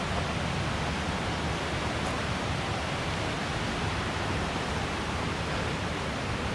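Steady rushing of a shallow, rocky creek, water running over and between stones.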